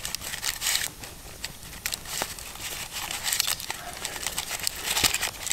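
Baking paper crinkling and rustling as hands press pizza dough into a paper-lined camping mess tin, with many small sharp crackles.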